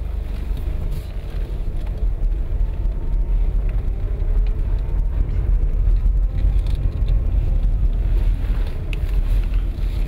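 A car's engine and tyres rumbling low and steady, heard from inside the cabin as it drives along a snowy forest road, growing a little louder a second or two in.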